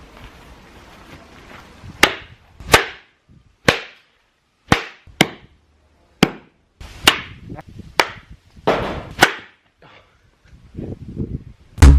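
A series of about a dozen sharp cracks or smacks at uneven intervals, starting about two seconds in, after a stretch of low background noise.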